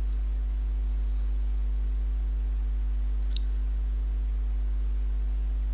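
Steady electrical mains hum: a constant low buzz with a ladder of overtones, and one faint click a little past the middle.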